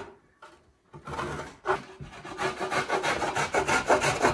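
Cheese being grated on a hand grater: quick, even rasping strokes that stop briefly about a second in and then resume, growing louder.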